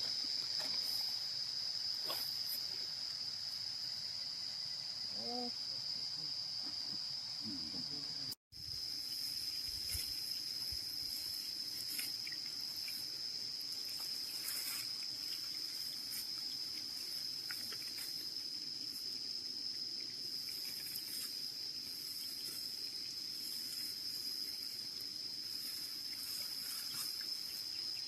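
Insects droning in one steady high-pitched note, with a brief gap about eight seconds in.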